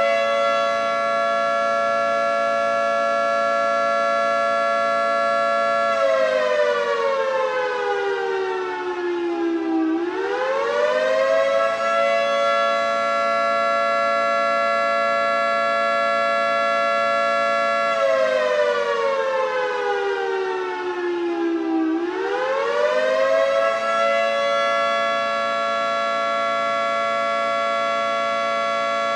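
Federal Signal 3T22A three-tone outdoor warning siren sounding its attack signal in a tornado drill test: a chord that holds steady for about six seconds, slides down in pitch, then sweeps quickly back up, twice over.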